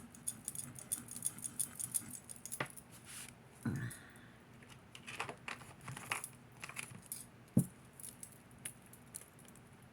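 Small scattered clicks and light metallic jingling of jewelry and small test-kit items being handled on a table, with one sharper click about three quarters of the way through.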